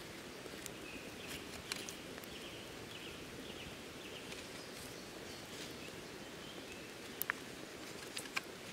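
Outdoor ambience: birds chirping faintly in short repeated calls over a steady low background rush, with a few sharp clicks or snaps, the loudest near the end.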